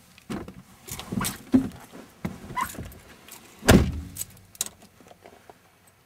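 A person getting into a car's driver's seat: rustling and knocks as he climbs in, then a car door shutting with a heavy thud about three and a half seconds in, followed by a few lighter clicks.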